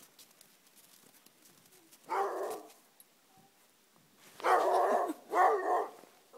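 Dogs barking in three short bouts, one about two seconds in and two close together near the end.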